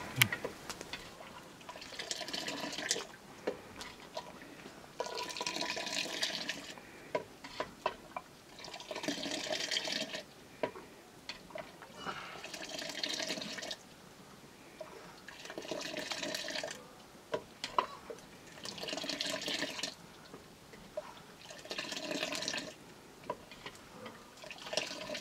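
Hot milk being scooped up with a metal ladle and poured back into the pot in a splashing stream, over and over, about every three to four seconds. Each pour lasts about a second, with a few short clicks in between.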